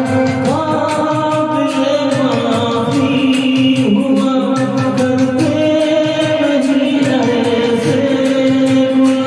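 A Hindi song playing: a voice singing long, ornamented held notes that bend in pitch, over a steady percussion beat.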